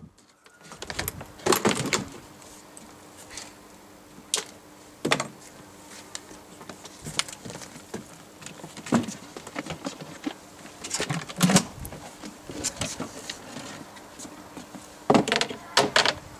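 Scattered knocks and clunks of metal radio gear and antenna sections being handled and set down on a wooden table, a sharp knock every second or two, with a louder cluster near the end.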